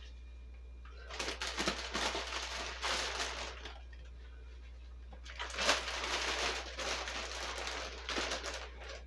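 Plastic bag of spinach crinkling and rustling as handfuls of leaves are pulled out, in two bouts of a few seconds each.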